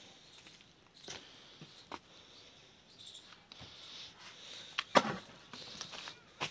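A few sharp knocks and thuds from a kachcha mud wall being broken down: one about a second in, another near two seconds, and the loudest pair around five seconds in. Faint crumbling of dry earth and rubble runs between them.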